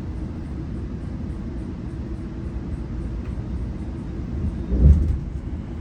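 GO Transit commuter train running on the track: a steady low rumble, with one louder thump about five seconds in.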